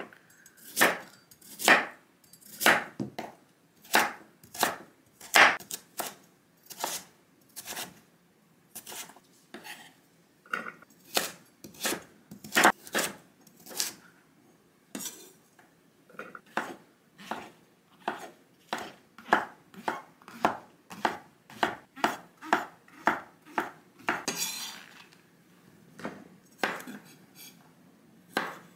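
Chef's knife cutting a carrot, then garlic cloves, on a wooden cutting board: a sharp knock of the blade on the board with each cut, about one or two a second, unevenly paced.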